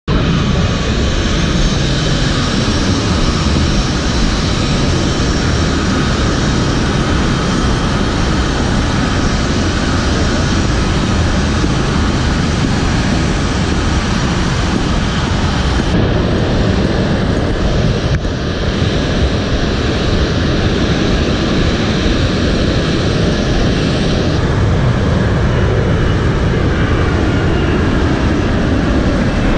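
Military transport aircraft engines running: a loud, steady roar with a high whine over it. The tone changes abruptly about halfway through.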